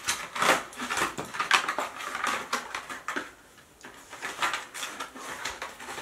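Hands opening a small cardboard product box and handling its packaging: irregular rustling, crinkling and light tapping of card and plastic.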